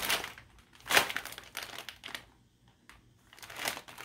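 Plastic bags crinkling in short bursts as they are handled, loudest about a second in, with a lull of about a second before the crinkling picks up again near the end.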